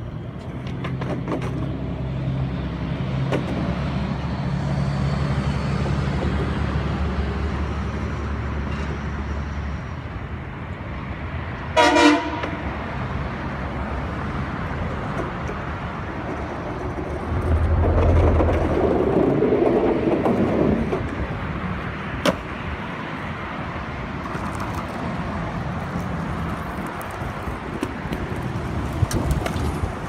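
Street traffic: a low engine rumble from passing vehicles, a single short vehicle horn toot about twelve seconds in, and another vehicle going by more loudly a few seconds later, with a sharp click after it.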